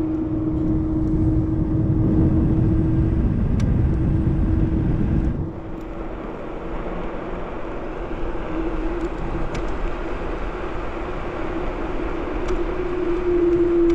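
Ninebot Max G30P electric kick scooter riding along, its motor holding a steady hum over a low rumble; the rumble drops off about five seconds in.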